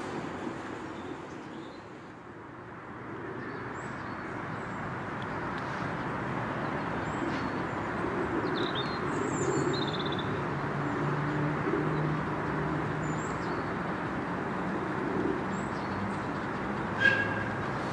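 Small birds chirping over a steady outdoor rumble, while a distant miniature steam locomotive, a scale rebuilt Merchant Navy 4-6-2, works toward the listener and grows louder. A brief sharp sound stands out near the end.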